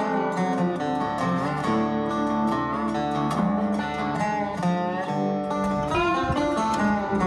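Background music led by plucked guitar, its notes sliding in pitch now and then.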